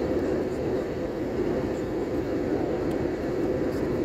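Steady cabin noise of a jet airliner in flight, heard from a window seat: turbofan engine and airflow noise, an even rush with a deep hum.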